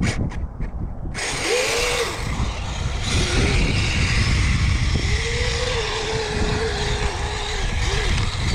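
Kyosho Blizzard RC snowcat with twin Hobbywing 2435 brushless motors driving off: after a few clicks, motor and gear whine starts about a second in and rises and falls with the throttle over a steady hiss, the longest stretch near the end.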